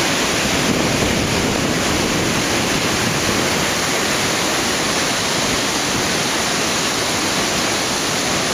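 Swollen river in flood pouring over a weir and churning into white water below: a steady, unbroken rush of turbulent water.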